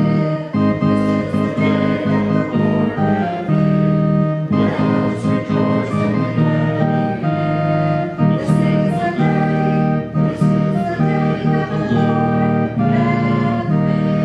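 Hymn music: instruments playing a steady melody of held notes.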